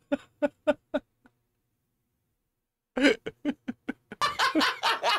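A man laughing hard in short rhythmic bursts. It breaks off into complete silence for about two seconds, then resumes and grows louder and denser near the end.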